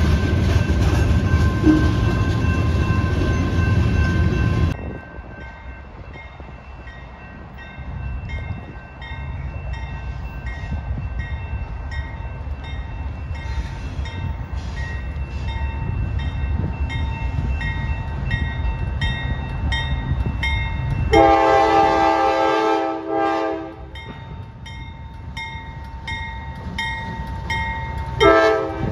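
A diesel freight train's rumble with a regular ticking beneath it. The locomotive's horn sounds one long blast of about two and a half seconds, two-thirds of the way through, and a short blast near the end.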